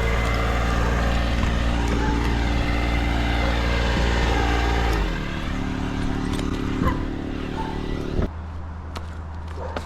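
A motor engine running steadily, its level dropping about five seconds in and its sound changing abruptly about eight seconds in.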